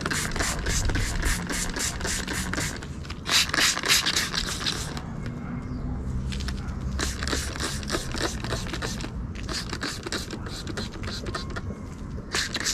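Metal EF hood hinges being scrubbed with a brush in degreaser: runs of quick back-and-forth scraping strokes, several a second, easing off for a couple of seconds in the middle before starting again.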